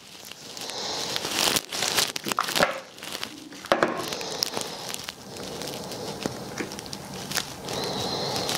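Handling noise as a power adapter and its cord are fitted together: plastic crinkling and rustling, with a few sharp clicks.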